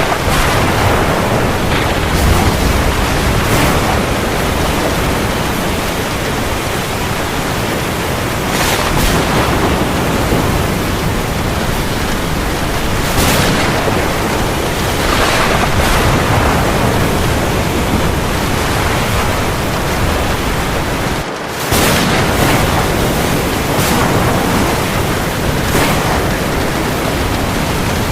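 Steady heavy rain, a dense even hiss, falling on the sea. The level dips briefly about 21 seconds in.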